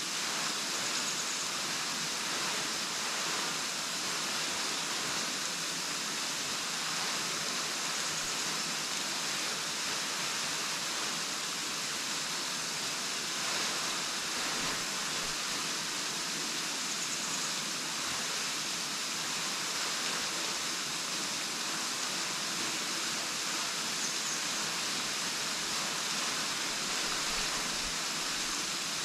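Waterfall: water falling and splashing in an even, steady hiss with no breaks.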